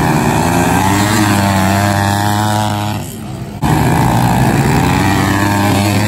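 Several pit bike engines racing past together, their pitch rising and falling with the throttle and gear changes. The sound drops briefly a little past halfway through, then comes back at full strength.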